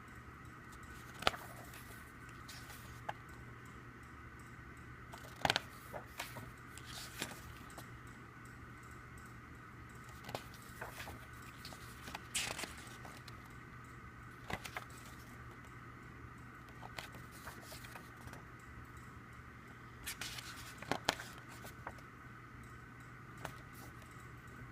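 Scattered clicks, taps and rustles of an album's paper and plastic contents being handled, over a faint steady hum.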